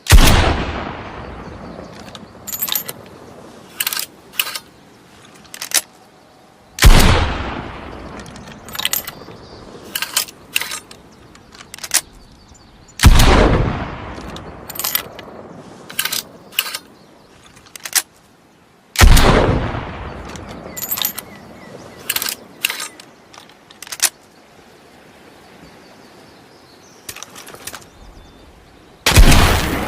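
Blunderbuss firing five loud single shots roughly six seconds apart, each blast trailing off in a long echoing decay. Short sharp clicks and knocks come between the shots.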